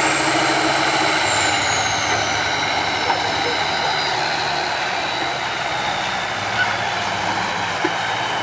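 Tatra 815 6x6 trial truck's diesel engine running steadily as the truck drives slowly over the slope, with a high whine that slowly falls in pitch over the first several seconds.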